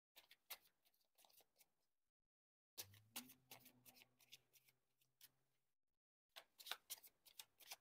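Tarot cards being shuffled by hand: faint, quick clicks and slaps in three short bursts with pauses between.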